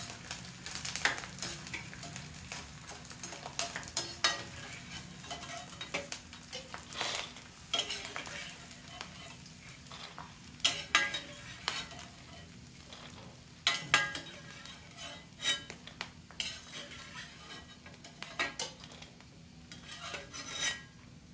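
Gond (edible gum) frying in hot desi ghee in a kadhai: a steady sizzle under irregular scrapes and clinks of a spoon stirring against the pan.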